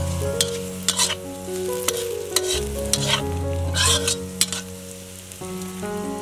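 Metal spatula scraping and clinking against a steel wok while stir-frying vegetables in hot oil, with a sizzle underneath. The strokes come irregularly, about a dozen of them.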